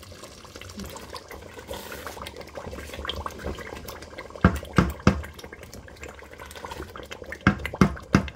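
A wooden spoon stirs tomato stew in a large stainless steel pot, the liquid sloshing. The spoon knocks against the pot three times about halfway through and three more times near the end.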